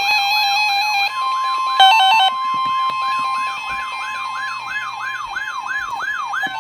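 Emergency Alert System warning tones: a siren-like tone sweeping upward about three times a second, joined about a second in by a steady high attention tone, with a brief loud burst of stepped electronic beeps near two seconds in.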